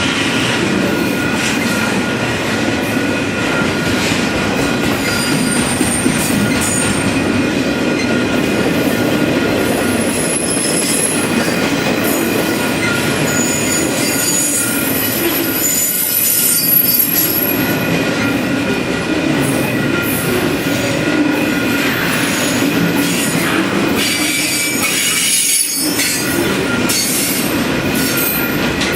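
Freight train cars rolling past on the rails, a steady loud rumble with high-pitched wheel squeal coming and going over it.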